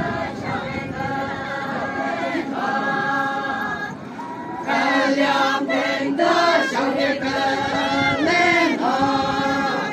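A group of women singing a chant together in unison, with long held notes and gliding phrases. The singing dips briefly about four seconds in, then comes back louder.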